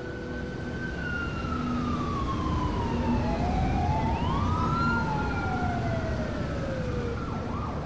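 Emergency vehicle sirens wailing over a low rumble, two slow tones sweeping past each other, one falling in pitch while the other rises, then a switch near the end to a fast repeated yelp.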